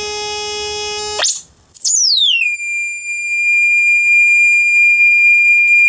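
A JBL 2412H compression driver with a new replacement diaphragm is playing sine test tones from a signal generator. A steady tone with overtones plays first. About a second in, it jumps to a very high whistle, slides down over about a second, and settles on a steady high tone. This tests the freshly installed diaphragm, which is judged nice and clean, with no distortion.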